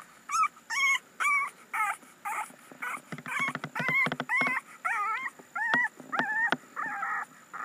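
Young bulldog puppy whimpering and crying in a rapid run of short, high, wavering cries, about two a second.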